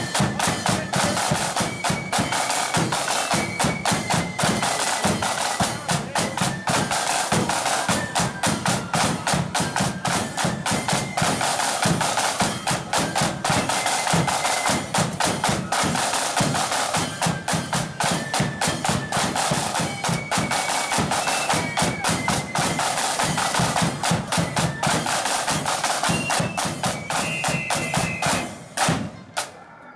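Marching band playing a march: massed snare drums rattling with steady bass drum beats under a high, shrill wind melody. The music stops near the end.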